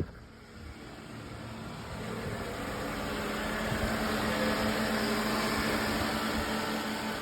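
2009 Toyota Camry engine running at idle with a steady hum, growing louder over the first few seconds and then holding steady, with a newly fitted alternator.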